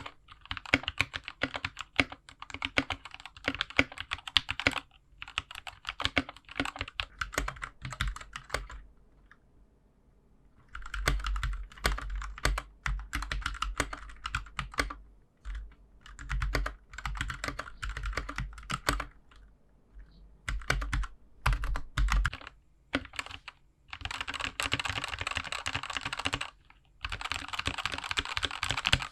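Typing on a GK61 mechanical keyboard with Gateron Milky Yellow linear switches. Keystrokes clack in runs of a few seconds with short pauses between them, and the fastest, densest typing comes near the end.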